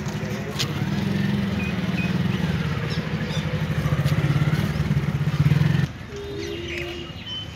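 A vehicle engine running close by with a steady low throb that builds a little, cut off abruptly about six seconds in, leaving quieter street background.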